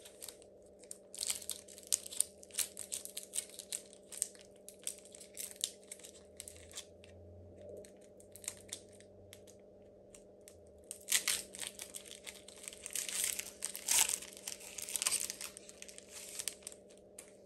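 Foil booster pack wrapper crinkling and being torn open, in two bouts of rapid crackling with a lull of a few seconds between. A faint steady hum runs underneath.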